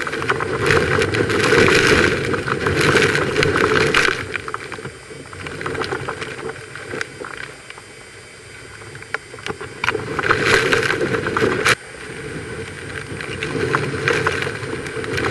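Hurricane winds buffeting the microphone in loud gusts. The gusts ease in the middle, surge again about ten seconds in, cut off suddenly with a click just before twelve seconds, and then build again.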